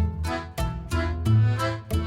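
Upbeat instrumental background music with a steady beat and a strong bass line.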